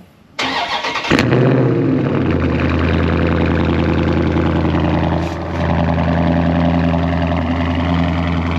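Dodge Charger Scat Pack Widebody's 392 Hemi V8 with its mid muffler deleted, cold-started: a brief crank, a loud flare as it catches about a second in, then it settles into a steady idle.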